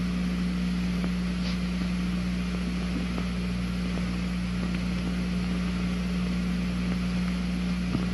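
Steady electrical hum with a low buzz and an even hiss underneath, with no speech or music: the background noise of an old television soundtrack played back and recorded.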